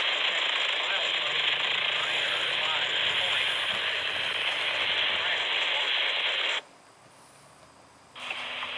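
Railroad radio scanner hissing with static over a weak, garbled transmission. The hiss cuts off abruptly about two-thirds of the way in as the squelch closes, and another transmission opens near the end.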